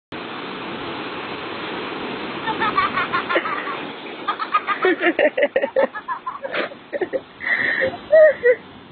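Steady noise of surf and wind at first, then people's voices over it from about two and a half seconds in, getting louder, with the loudest voice near the end.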